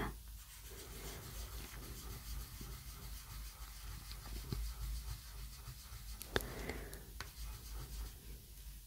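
Soft pastel stick rubbing and scratching across paper, with a sharp click about six seconds in.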